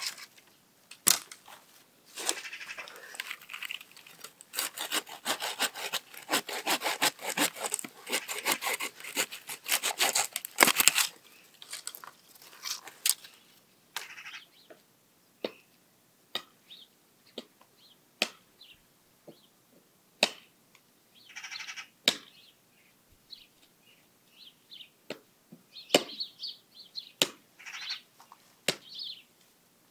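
Hand saw cutting through a tree branch in quick back-and-forth strokes for about nine seconds, stopping around eleven seconds in: pruning dead wood from the trees. After it come scattered single sharp knocks, with short bird chirps near the end.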